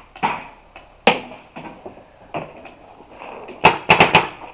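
Paintball markers firing: a few single pops spaced about a second apart, then a quick burst of about four shots near the end.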